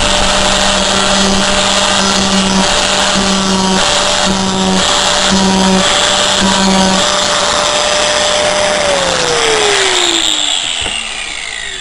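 Angle grinder with a thick disc deburring the cut edge of a hole in aluminium sheet: a steady high whine with a repeated pulsing for the first seven seconds or so. About nine seconds in it is switched off and the whine falls as the disc spins down.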